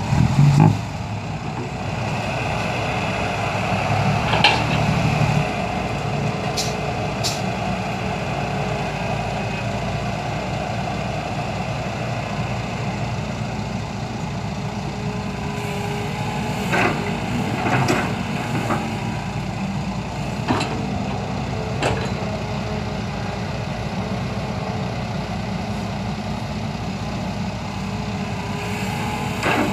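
Hitachi hydraulic excavator's diesel engine running steadily while it loads soil into a dump truck, working harder in the first few seconds. Several short sharp knocks come as earth and the bucket strike the truck's steel bed.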